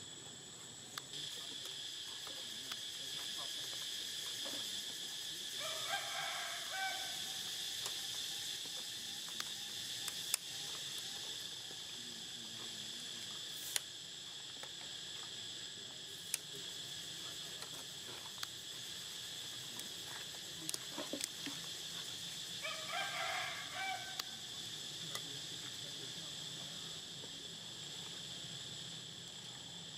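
Steady high-pitched insect chorus, like crickets. Twice, about a quarter-minute apart, a short animal call rises over it, with a few sharp clicks in between.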